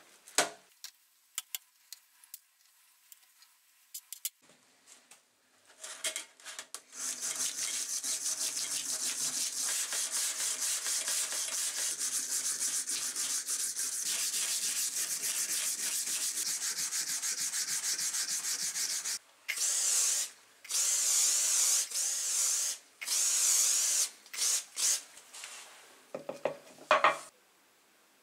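Wire brush scrubbing steel tin snips under soapy water in a stainless steel tray: a long, steady run of rapid scraping strokes, then shorter spells broken by pauses. It opens with a few light knocks before the scrubbing starts.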